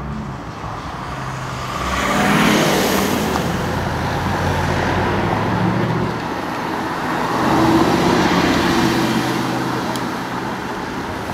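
Audi performance-car engines accelerating hard. First a white Audi estate's engine rises in pitch as it pulls away, about two seconds in. Then a first-generation Audi R8's engine revs and rises again as it pulls off, later in the clip.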